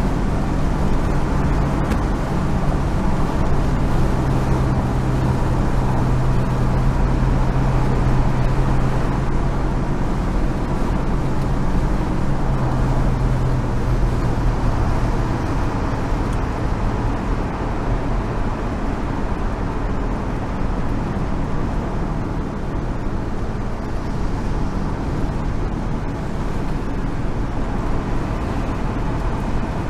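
1970 Chevrolet Monte Carlo cruising at freeway speed: steady engine drone mixed with tyre and wind noise. The low engine drone is strongest at first and eases off about halfway through.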